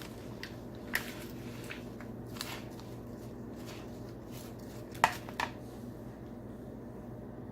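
A few scattered light clicks and knocks of kitchen utensils and dishes, the loudest pair a little past the middle, over a steady low hum.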